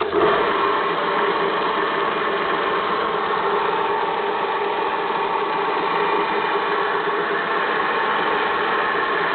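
Homemade belt sander switched on, coming up to speed at once and running steadily, its motor and belt making a loud hum with several steady tones.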